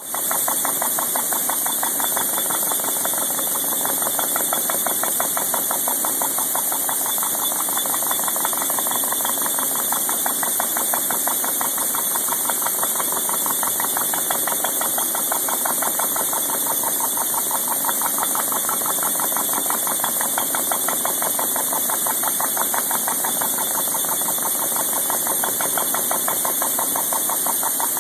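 CNC milling machine side-milling a flat on the edge of a large metal gear ring: a steady, rapid rhythmic chattering from the cutter's teeth biting into the metal, even throughout.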